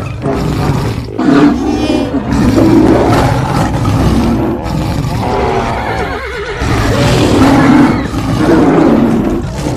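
Sound-effects mix of wild animal roars and a horse whinnying over a steady low rumble of running animals, with the roars coming in repeated swells.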